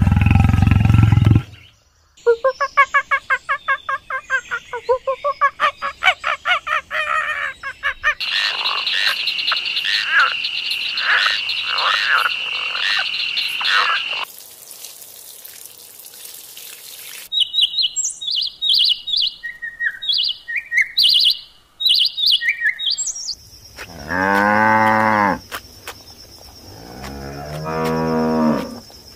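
A string of animal calls. A lion's roar at the very start, then frogs croaking in rapid pulses, a steady high trill, a few seconds of hiss, and short high chirps. Near the end a cow moos twice, each moo long.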